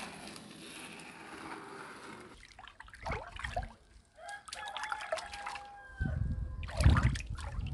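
Chickens calling, with a steady hiss for the first couple of seconds.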